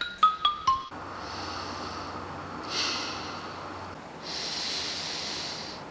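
The intro music ends about a second in with four descending bell-like notes. Then a boy breathes close to the microphone, a short breath near the middle and a longer one near the end, over a steady outdoor hiss.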